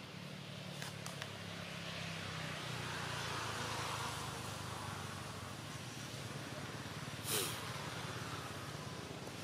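A motor vehicle passing: a low engine hum under road noise that swells to a peak about three to four seconds in and then fades. A single short sharp sound about seven seconds in.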